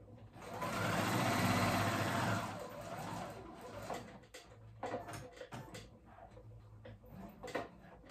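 Computerized sewing machine stitching in bursts. It runs loudest and fastest for about two seconds starting half a second in, then more quietly with pauses and light clicks.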